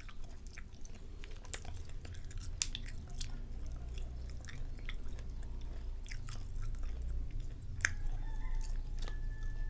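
A person chewing a mouthful of dried grilled scallop mantle, a very tough, chewy snack. Soft chewing sounds with irregular small clicks.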